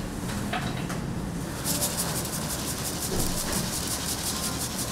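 A steady hiss starts a little under two seconds in, over a low continuous rumble.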